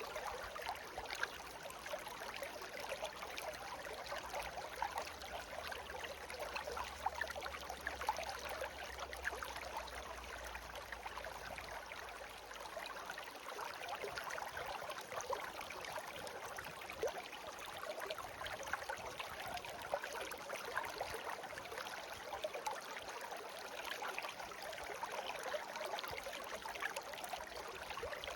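Brook babbling steadily, clear water trickling and gurgling in a constant rush. A faint low rumble underneath stops about halfway through.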